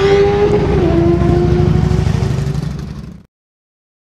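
Turbocharged drag-racing snowmobile engine running hard at a steady high pitch, dipping slightly about a second in. The sound fades out about three seconds in, followed by silence.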